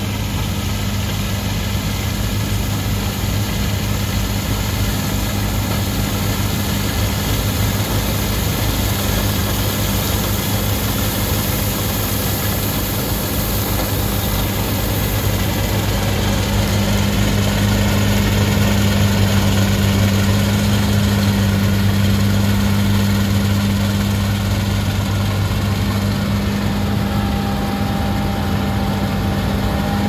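John Deere combine harvester running at working speed while cutting oilseed rape, a steady low engine hum over the rushing noise of the machine. It grows louder as the combine comes up close.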